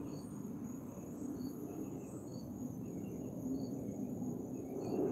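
Crickets chirping: short high chirps about once a second over a steady high-pitched trill, with a low background rumble of outdoor noise.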